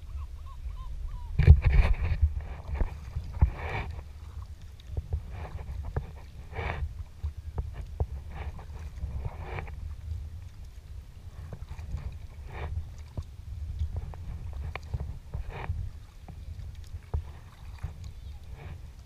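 Sea kayak paddle strokes: the blades dip and splash into the sea about once a second, the loudest stroke about a second and a half in, over a steady low rumble of water against the hull.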